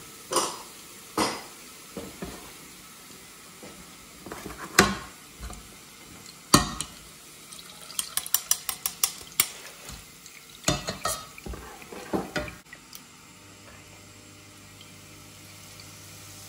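A metal slotted spoon and strainer clinking and knocking against a steel saucepan of frying oil as the deep-fried seitan is lifted out to drain, with a quick run of light taps about halfway through. The oil sizzles faintly underneath.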